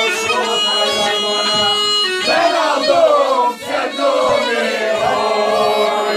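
Bagpipe folk music, most likely a tulum, playing a tune over a steady drone, with voices singing along and a low beat about twice a second.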